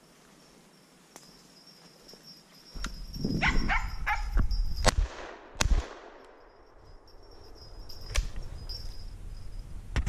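A gunshot fired at a flushing woodcock, which misses, about halfway through, after a few seconds of rustling movement through brush.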